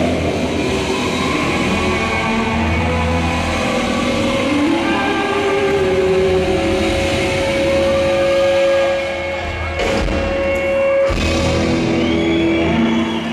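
Live rock band playing loudly, long held notes over a dense, pulsing low end.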